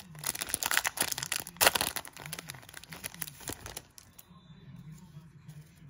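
Foil booster-pack wrapper crinkling and crackling in the hands as it is opened. The crinkling stops about four seconds in and it goes much quieter.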